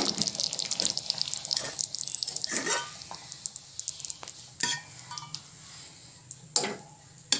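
A metal ladle scraping and clinking against a metal kadhai and a steel bowl as thick spinach gravy is ladled out. The clinks come at scattered moments, the sharpest about six and a half seconds in.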